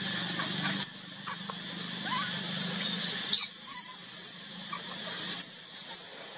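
Infant macaque crying: shrill, high-pitched screams that arch up and down in pitch, in three spells, the first about a second in and the others in the second half.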